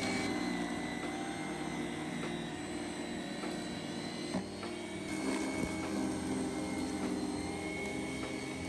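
BRAIT BST-1300Y electric snow shovel running steadily, its 1300 W electric motor spinning the auger as it throws snow. A couple of short knocks come about halfway through.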